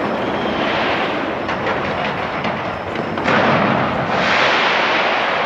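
Fireworks going off in a rapid, continuous barrage of booms and crackles, swelling louder about three seconds in.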